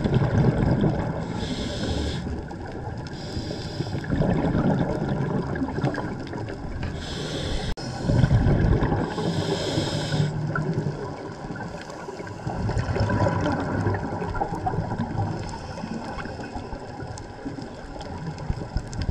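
Scuba breathing through a regulator underwater: short hissing inhalations alternating with longer, louder rumbling rushes of exhaled bubbles, one breath every few seconds.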